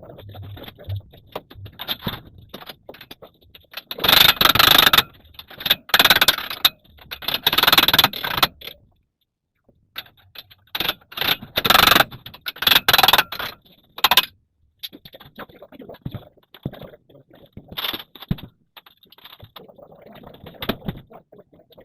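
Irregular bursts of scraping and rattling, each about a second long, loudest and most frequent in the middle, with a short quiet gap between them.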